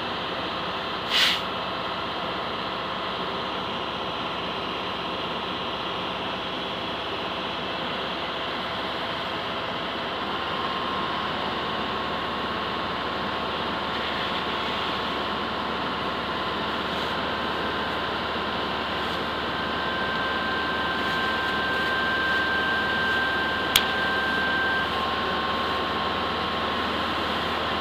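Fire engine running steadily at the scene, a continuous mechanical drone. A thin whine tone comes in about ten seconds in and a higher one holds for several seconds later on, with a sharp click near the end.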